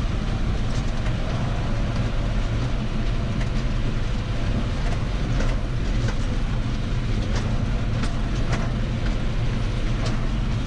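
John Deere tractor driving over cobblestones, heard from inside the cab: a steady low engine hum with scattered knocks and rattles as it jolts over the cobbles.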